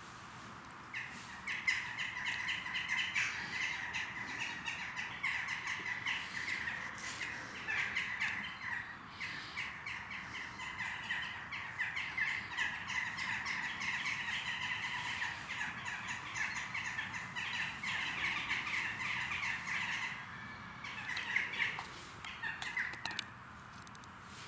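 Birds chirping and chattering in a dense, rapid stream that starts about a second in, briefly thins out, and stops shortly before the end.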